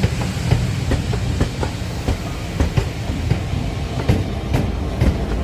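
A train passing at speed, a steady low rumble with its wheels clicking over the rail joints several times a second.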